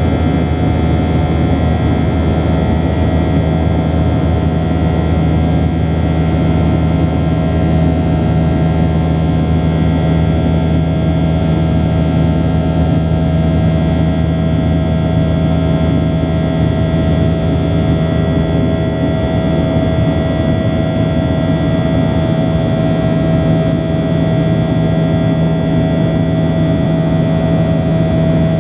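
Steady cabin drone of a Boeing 737-800 in its climb after takeoff, heard inside the cabin: the CFM56-7B engines at climb power, a constant rumble with several steady humming tones.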